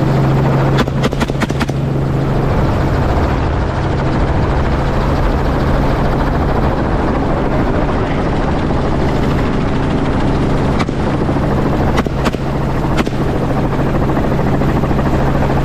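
Helicopter engine and rotor running with a steady drone. A rapid string of about five or six rifle shots comes about a second in, and three or four more single shots follow later.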